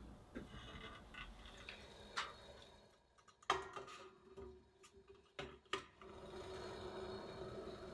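Light clinks and knocks of stainless steel cookware and ceramic ramekins, the loudest about three and a half seconds in as the steamer basket is set down onto the stockpot. From about six seconds on comes a steady low hiss of the water boiling beneath the steamer.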